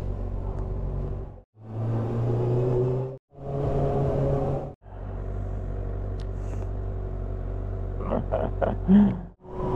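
Kawasaki ZX-6R 636 inline-four motorcycle engine running at low revs while riding, rising slightly about two seconds in. The sound is cut into several pieces by abrupt drops to silence, and a few short sharp sounds come near the end.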